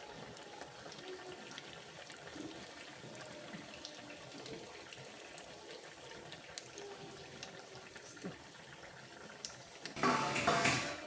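Sel roti deep-frying in hot oil in a kadai: a steady sizzle with scattered small pops and crackles, and a louder rush of sizzling about ten seconds in.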